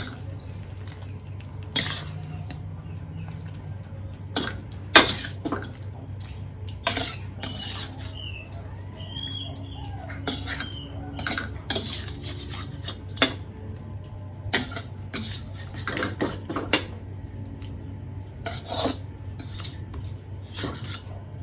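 A spatula scraping and tapping against a wok and a ceramic bowl as cooked pumpkin is scooped out, in irregular clinks and scrapes, over a steady low hum.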